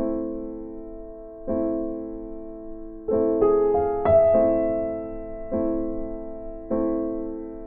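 Background music: slow, soft piano chords, each struck and left to ring and fade, about one every second and a half, with a quicker group of notes a little past the middle.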